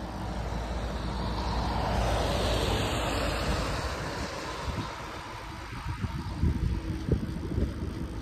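Riese & Müller Load 75 cargo bike riding over snow: tyres rumbling and crunching over trodden snow, with uneven bumps and knocks from about five seconds in. A car passing on the adjacent road swells and fades over the first few seconds, under a faint steady hum.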